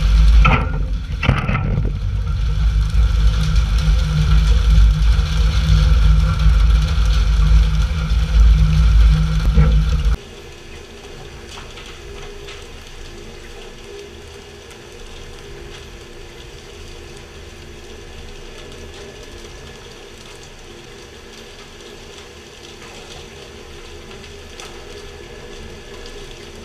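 Loud low rumble of a fishing boat's engine with rushing water, and a couple of sharp knocks about a second in. About ten seconds in it cuts off abruptly to a much quieter, steady mechanical hum.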